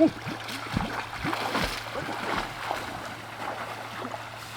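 Water splashing and sloshing, with short dripping, bubbling blips, opening with a sharp knock.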